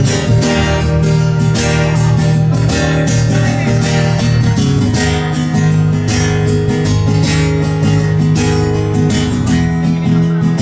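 Acoustic guitar strummed steadily, playing the instrumental intro of a song before the vocals come in.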